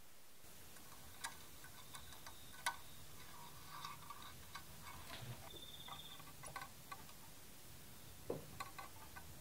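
Faint, scattered small clicks and taps from hand-soldering wire leads onto potentiometer lugs in an aluminium amp chassis, as the iron tip, wire and tools touch the metal. A brief high, slightly pulsing tone sounds a little past halfway.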